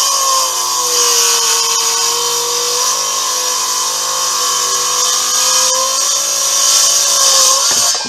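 Handheld circular saw cutting through old dimensional lumber, a loud steady whine whose pitch sags slightly under load. The cut finishes right at the end.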